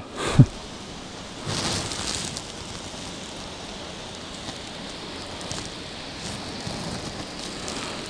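Steady, even hiss of outdoor background noise, with a brief swell about two seconds in.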